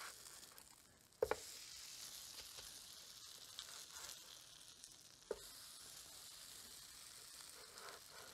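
Faint sizzling of shredded-potato pancakes frying in oil on an electric griddle as they are flipped. The sizzle comes in about a second in with a sharp spatula click against the griddle, and another click follows near five seconds.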